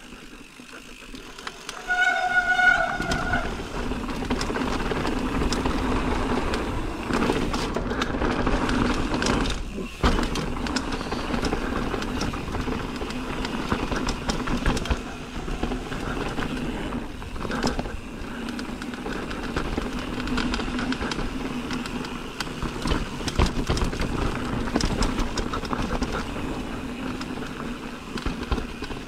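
Mountain bike riding fast over rough trail: a steady rumble of tyres and rattling bike, with wind on the microphone. A brief high squeal about two seconds in, just as the rumble picks up, fits the disc brakes.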